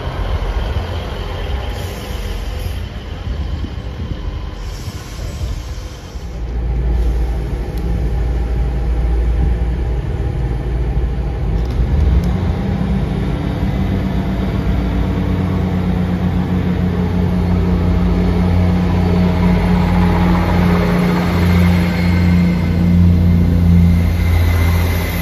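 Class 158 diesel multiple unit idling with a low rumble at the platform. About halfway through, its underfloor diesel engines power up, the note rising and then running steadily and louder as the train pulls away.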